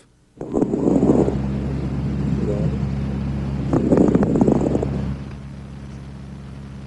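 Chest sounds recorded through a stethoscope: two breaths with fine crackles, soft, high-pitched and very brief, heard as tiny pops during each breath. A steady electrical hum runs underneath.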